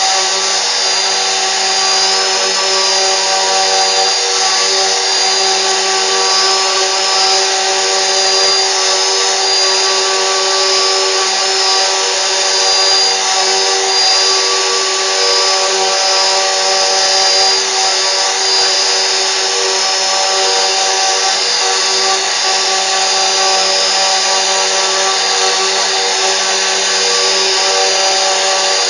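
CNC router spindle running continuously with a steady whine of several fixed pitches over a constant machining noise.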